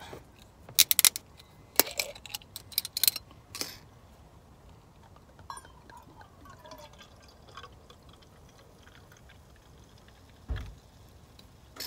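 A few sharp clicks as a glass soda bottle is handled and opened, then cider pouring quietly into a stainless steel tumbler. A dull thump near the end.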